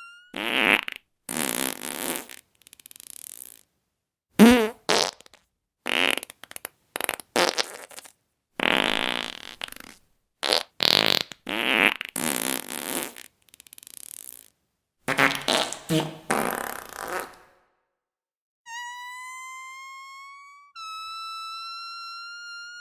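A rapid string of fart sounds, more than a dozen short spluttering and buzzing blasts with brief gaps between them. Near the end a steady whistle-like tone plays, rising slightly, then steps up in pitch and holds.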